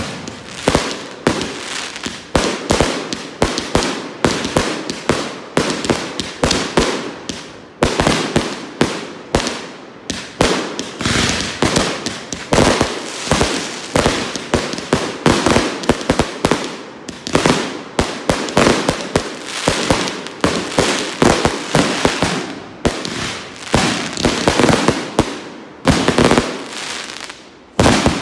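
Consumer aerial fireworks going off in quick succession, about two to three sharp bangs a second with crackle between them. The volley stops abruptly near the end with a last bang.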